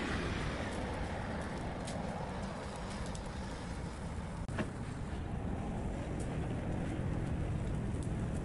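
Steady low outdoor rumble with a few light metallic clicks, one sharper click about halfway through, as the metal grill clamps holding the fish are handled over the charcoal.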